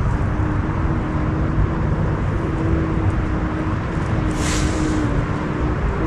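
Steady low outdoor rumble, like distant road traffic, with a faint thin tone held steady through most of it. The tone is offered as the lament of a ghostly woman. A short breathy hiss comes about four and a half seconds in.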